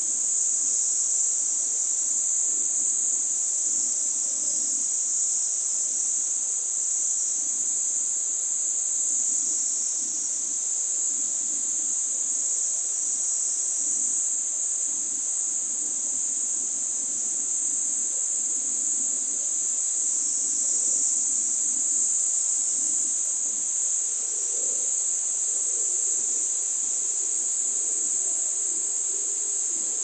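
Insects in the surrounding forest producing a continuous, high-pitched drone that holds steady and unbroken.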